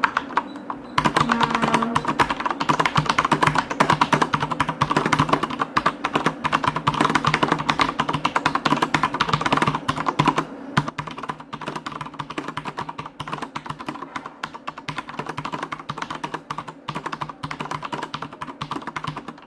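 Fast typing on a Corsair STRAFE mechanical keyboard with Cherry MX Brown switches, a dense run of key clicks recorded through a dictaphone. The typing is louder at first and softer from about halfway through. A steady low background hum runs under it.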